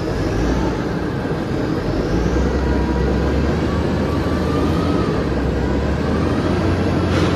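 Heavy crushing-plant machinery running: a steady, loud low rumble from the gyratory crusher and the dump trucks working at it, with a short sharp clank near the end.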